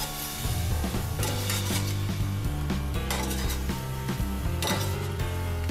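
Background music with a steady bass line, over which metal tongs clink and scrape against a stainless steel frying pan and a plate as fried pineapple pieces are lifted out.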